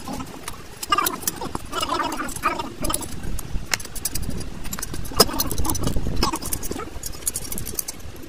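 Scattered metal clicks and clinks of a ring spanner on the bolts and of a Wabco truck air dryer's metal valve body being shifted on its canister as the unit is taken apart.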